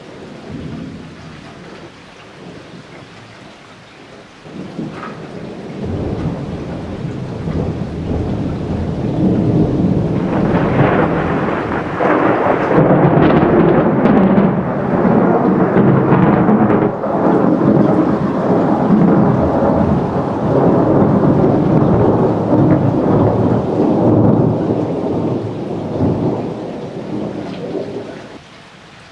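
Thunder from a close lightning strike. The rumble breaks in about four seconds in, builds into a long, loud rolling rumble, and dies away near the end.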